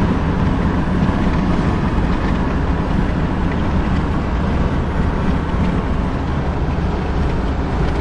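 Steady road and wind noise inside a car cruising at highway speed, a loud, even rush heaviest in the low end.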